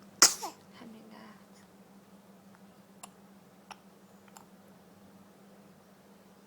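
A single sharp sneeze about a quarter second in, followed by a brief falling sound, then a few faint clicks.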